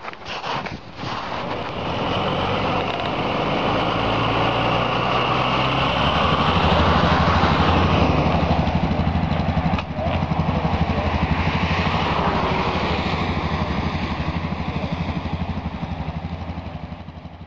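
Off-road 4x4 vehicle's engine running close by at a steady pitch, growing louder over the first few seconds and then holding, with a brief break about ten seconds in. A few short knocks come just before it at the start.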